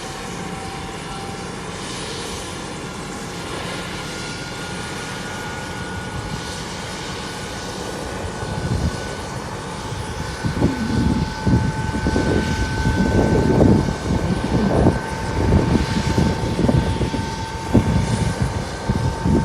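Bell 205 helicopter's Lycoming T53 turbine whining as it powers up for takeoff, its pitch creeping slowly upward. About halfway through, a loud, irregular low rumble from the rotors comes in over the whine.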